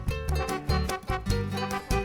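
Upbeat background music with a bouncy bass line and a steady beat, plucked strings prominent.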